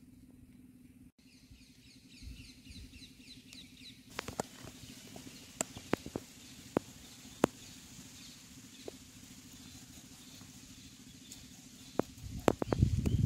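Rural outdoor ambience: a steady low hum with small birds chirping in quick repeated notes, a few sharp clicks in the middle, and a louder burst of thumps and rustling near the end as the raw chicken and knife are handled.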